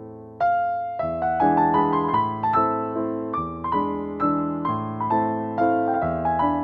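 Background piano music: a gentle melody of single notes, each struck and fading, over lower held notes. A new phrase comes in strongly about half a second in.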